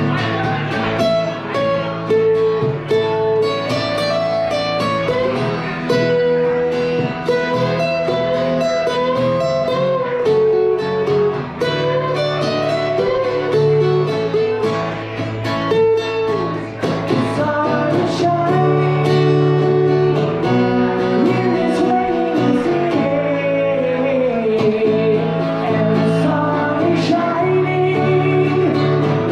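Acoustic guitar with a man singing a country-style song.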